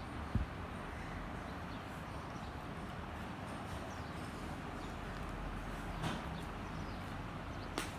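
Slime being handled: a dull thump just after the start, then two sharp clicks, one about six seconds in and one near the end, over a steady hiss.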